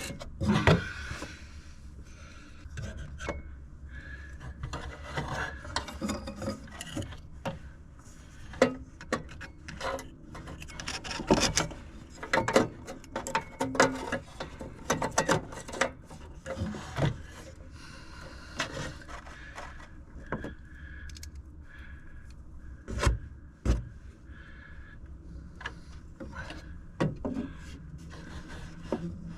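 Hands working small screws and metal parts inside a Goodman furnace while replacing its hot surface igniter: irregular clicks and taps with scraping and rubbing between them.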